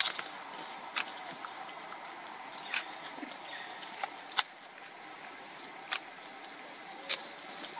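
Steady high-pitched insect drone, as of cicadas or crickets, with about five sharp clicks or snaps scattered through it, the loudest a little past the middle.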